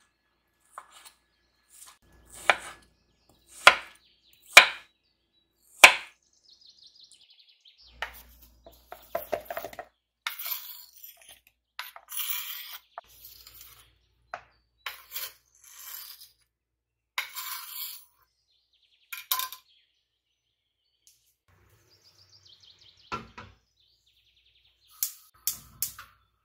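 Kitchen prep sounds: four loud, sharp knocks of utensils on a hard surface, then a run of short bursts of rustling noise, and a few light clicks near the end.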